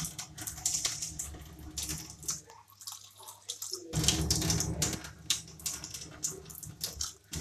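Kitchen tap running water into a plastic cup. The flow stops for about a second and a half in the middle, then runs again.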